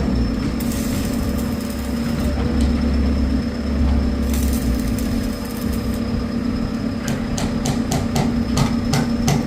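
Steady machine hum, with two stretches of arc-welding crackle of about a second and a half each. From about seven seconds in, rapid hammer strikes on metal come in, about three a second.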